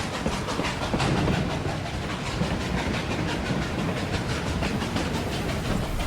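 Hand-made foley of a steam train running on rails: a fast, even clatter over a low rumble.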